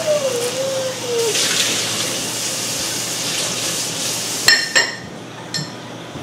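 Kitchen tap running into a sink, then two ringing clinks of dishware about four and a half seconds in, and the running water stops just after.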